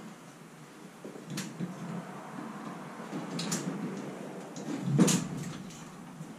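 Scattered clicks and knocks from a rope-and-pulley hoist and a wooden boat on its frame being handled over a trailer, with one heavy thump about five seconds in.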